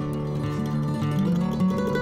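Instrumental background music, a run of sustained pitched notes that changes every fraction of a second.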